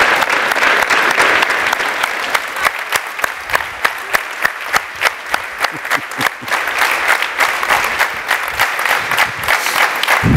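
Large audience applauding. A few seconds in, the clapping falls into an even unison beat, then spreads back into dense, uneven applause.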